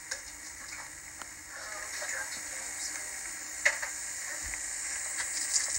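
Steady hiss of an old camcorder-tape home video, with scattered crackles and rustling and one sharper crack a little past halfway.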